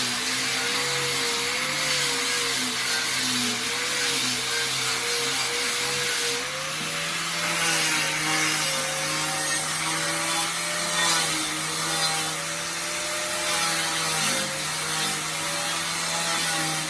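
A machine's engine or motor running steadily over a broad hiss, its note wavering and stepping up slightly about six seconds in.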